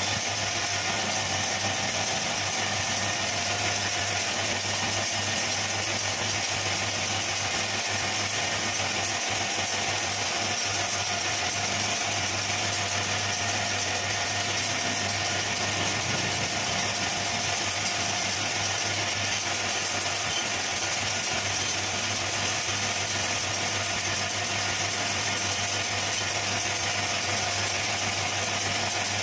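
Wood lathe running at a steady speed: a constant motor hum with several steady tones and an even mechanical noise, unchanging throughout.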